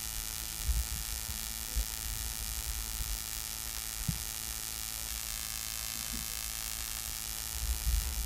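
Steady electrical hum and hiss with no speech, broken by a few faint, brief low bumps.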